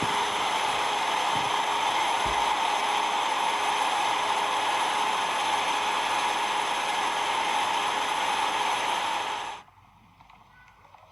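Combine harvester running steadily at work, a dense even mechanical whir with several steady high whines in it. It cuts off suddenly near the end, leaving only faint background sound.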